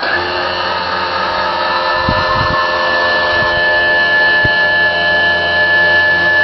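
Electric actuator motors whining steadily as they open the engine bay doors and raise the jet engine on its pylon, with a few low knocks from the mechanism about two seconds in and once more a couple of seconds later.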